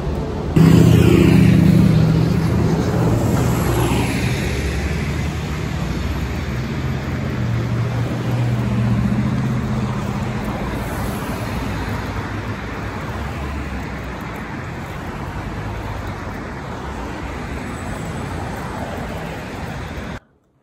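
Road traffic on a busy street: cars passing close by in a steady traffic noise, with a vehicle's engine loudest in the first few seconds. The sound cuts off abruptly near the end.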